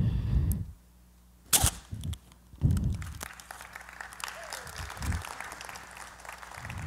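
A hand slams a paper bag flat onto a tabletop with a sharp crack about a second and a half in, then a duller thump. After that, paper rustles and the audience applauds.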